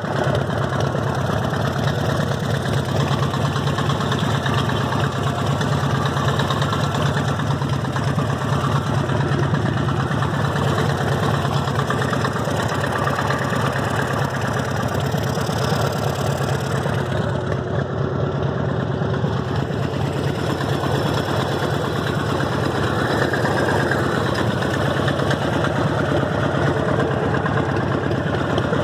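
Harley-Davidson Evolution V-twin engine idling steadily, with a mechanical knock that the owner cannot place as either rod knock or lifter noise.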